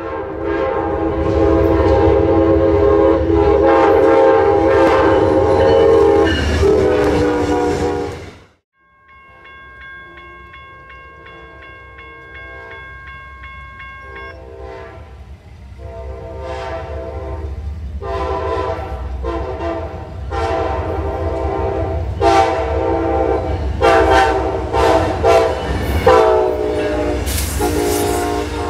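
A train horn sounds a long blast that cuts off abruptly about eight seconds in. Then a grade-crossing bell rings faintly, and the Amtrak P42DC diesel locomotive leading the Silver Star blows its horn in repeated blasts as it reaches the crossing. The passing train's wheels rumble on the rails underneath.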